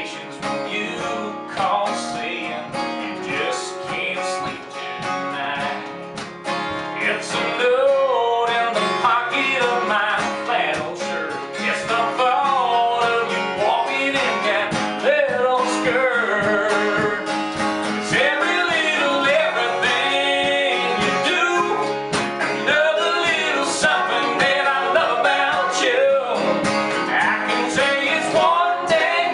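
Two acoustic guitars strumming and picking a country song while a man sings lead; the performance gets louder about eight seconds in.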